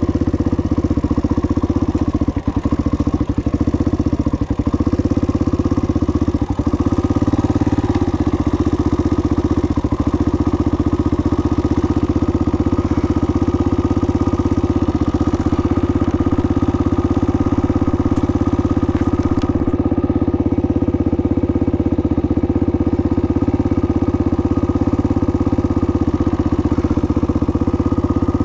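An off-road vehicle's engine running at a steady, unchanging pitch, with a few short knocks in the first several seconds.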